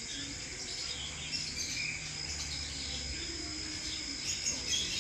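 Insects buzzing steadily at a high pitch, with a few faint chirps and a low rumble through the middle.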